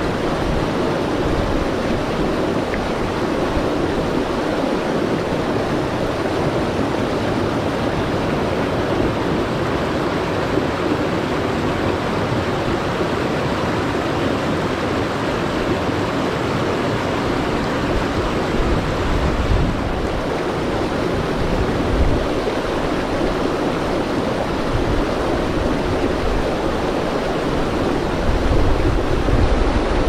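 Shallow mountain river rushing steadily over boulders in small rapids. Wind buffets the microphone now and then in the second half, strongest near the end.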